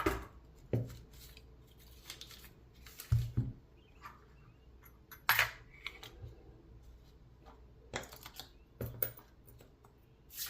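Light metallic clicks and clinks from a disassembled brass padlock and its small parts being handled, about six spread a second or more apart.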